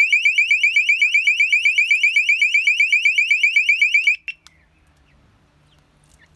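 Battery motion-sensor alarm sounding, a loud shrill chirp rising in pitch and repeating about nine times a second. It cuts off abruptly about four seconds in as it is switched off by hand, with a click just after.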